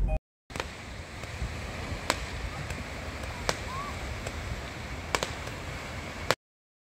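Sea waves washing onto a sandy beach: a steady rushing of surf, with a few sharp clicks over it. It cuts off suddenly near the end.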